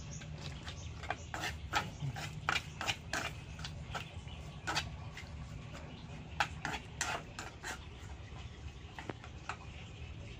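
Chopsticks clicking and tapping against an aluminium wok as pieces of climbing perch are turned in the braising sauce: a run of irregular sharp clicks that thins out near the end, over a steady low hum.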